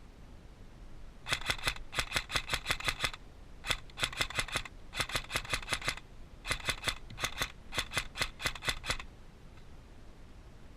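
Airsoft gun firing in several quick bursts of sharp clicking shots, about ten shots a second, with short pauses between bursts.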